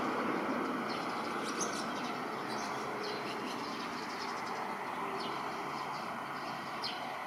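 Distant engine noise of a climbing Embraer 170 jet airliner, a steady rumbling hiss that slowly fades as it flies away. Small birds chirp now and then over it.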